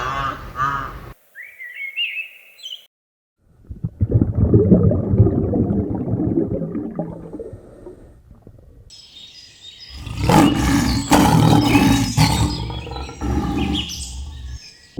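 A string of different animal calls cut one after another. First a pitched call, then a short higher call. After a brief gap comes a long, low, rough call, and near the end a louder, rougher one.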